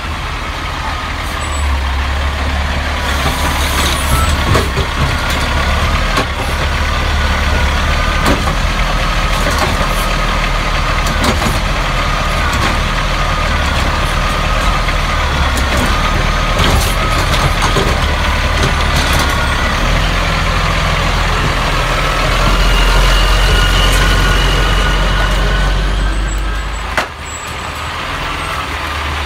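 Scorpion automated side-loader garbage truck running loudly as its hydraulic arm lifts and empties a wheeled cart: a heavy engine rumble with a wavering whine and several sharp knocks. The sound drops abruptly near the end.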